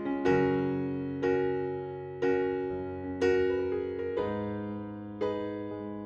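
Background music: soft piano chords, struck about once a second, each left to fade before the next.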